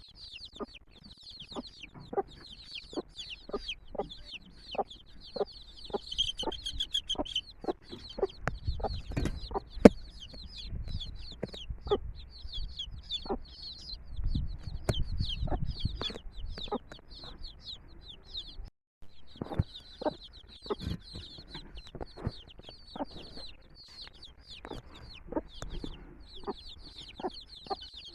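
A brood of chicks peeping without pause in quick, high chirps, with a mother hen clucking in short low notes about twice a second. The sound cuts out for a moment about two-thirds through.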